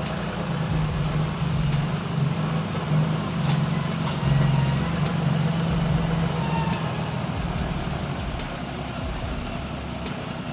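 Heavy truck engine running steadily under load, with a strong low drone that eases off in the last few seconds.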